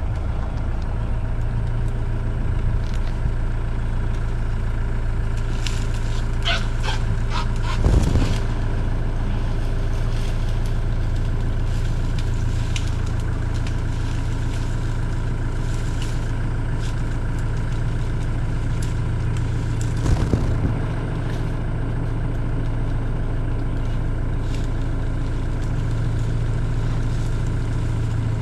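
Safari vehicle's engine idling steadily. A few short clicks and knocks come about six to eight seconds in and again near twenty seconds.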